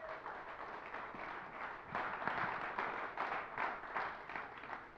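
Audience applauding: many hands clapping, swelling for the first couple of seconds and thinning out near the end.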